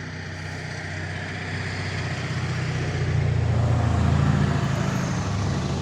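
A motor vehicle passing on a road, its engine hum growing louder to a peak about four seconds in, then starting to fade.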